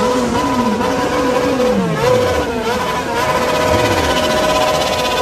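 A group of sport motorcycles revving their engines together, many engine pitches rising and falling in overlapping blips over steady idling.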